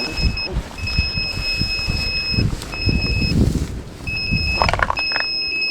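High-pitched electronic beeping from FPV drone gear after a crash, switching on and off in long and short beeps, over low wind rumble and a few rustling clicks.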